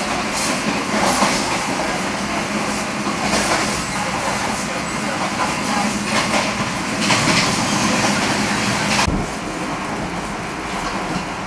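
Passenger train running on the rails, heard from inside the coach: a steady rumble with scattered rattles and knocks. About nine seconds in, the sound drops a little and changes suddenly.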